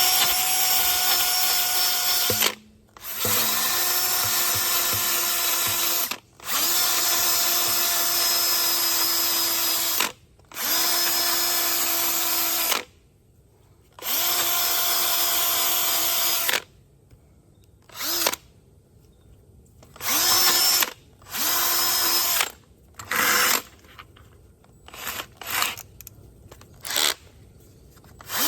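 Power drill spinning a 120-grit sanding pad against a wheel rim, sanding off curb rash and peeling clear coat. It runs in several long stretches of a few seconds each, spinning up with a rising whine at every start, then in short bursts near the end.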